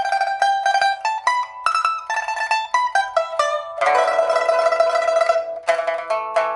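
Solo pipa with an African rosewood body, a newly replaced soundboard and new frets, played in a post-repair test: quick runs of plucked melody notes, then about four seconds in a denser, fuller passage with lower strings sounding beneath the melody.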